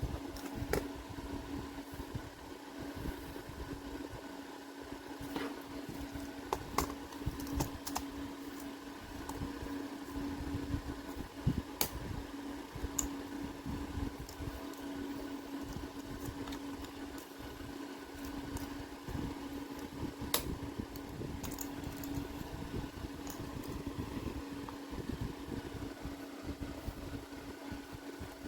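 Steady mechanical hum like a running fan, with a low rumble under it and a few scattered sharp clicks.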